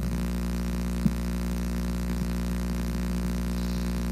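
Steady electrical hum and buzz on the microphone feed, the sign of a faulty microphone cable or connection, which the handler suspects but isn't sure of. A faint click about a second in as the cord is handled.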